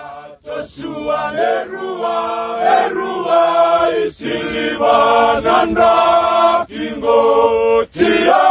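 Male choir singing a slow chant in harmony, with held notes in phrases broken by brief pauses.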